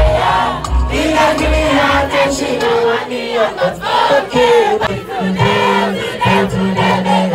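Live performance of an amplified song: loud backing music with bass and drums, and a singer's voice together with many voices of a crowd singing along.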